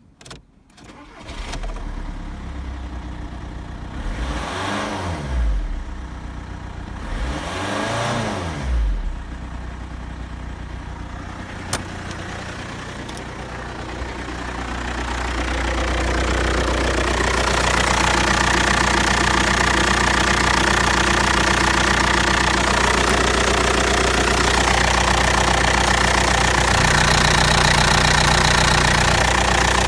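Volkswagen Passat B6 2.0 TDI (BMP) four-cylinder diesel starting about a second in, revved twice with a rise and fall in pitch each time, then idling steadily with diesel clatter. The idle grows louder near the middle as it is heard close to the open engine bay, with the oil filler cap off.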